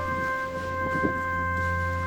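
Background music with long held chords, shifting to a new chord at the start.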